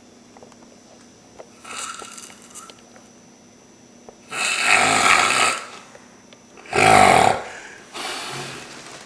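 A man snoring loudly in his sleep: a soft rasping snore early on, two loud rasping snores around the middle, and a softer one near the end.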